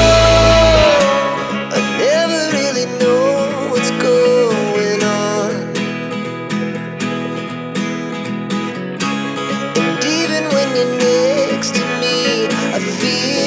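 Background song with plucked acoustic guitar chords and a wavering melody line. The heavy bass and full band drop out about a second in.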